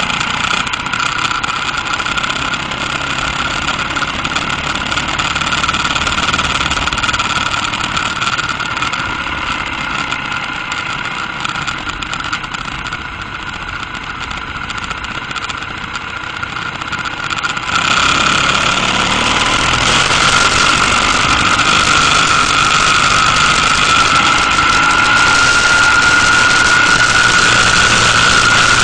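Motorcycle engine running while riding, heard from the bike with wind and road noise. About two-thirds of the way in it gets suddenly louder and the engine note rises slightly near the end.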